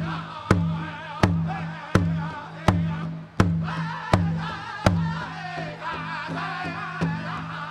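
Powwow drum group singing: several high, wavering voices in chorus over a large bass drum struck in a steady beat, about one and a half strikes a second. The drum strikes turn lighter in the last few seconds.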